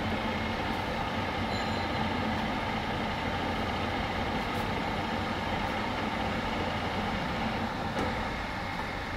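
Raboma radial drilling machine running with its spindle turning under power: a steady mechanical hum with several constant tones that holds evenly throughout.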